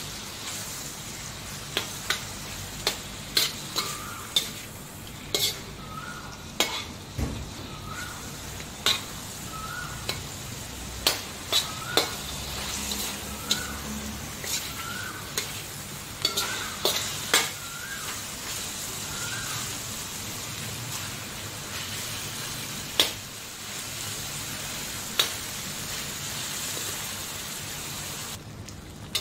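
Chicken gizzards frying in hot coconut oil in a steel wok: a steady sizzle with sharp clinks and scrapes as a metal slotted spoon stirs them against the pan. A faint short chirp repeats about once a second through the middle.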